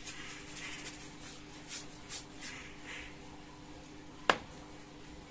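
Dry paintbrush bristles swishing across paper in quick repeated strokes over the first couple of seconds, then one sharp knock a little after four seconds in.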